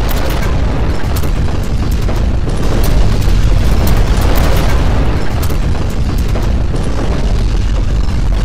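Strong earthquake shaking: a loud, continuous deep rumble with objects clattering and banging throughout.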